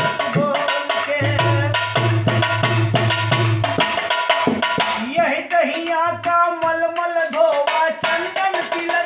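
Dholak played with both hands in a quick, busy rhythm, deep bass strokes on one head and sharp slaps on the other, with a man singing a folk song over it; the singing comes forward in the second half while the bass strokes thin out.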